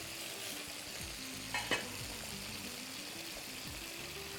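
Salmon fillets sizzling steadily in a hot frying pan. A spoon stirs potatoes in a steel pot alongside and knocks twice against it about a second and a half in.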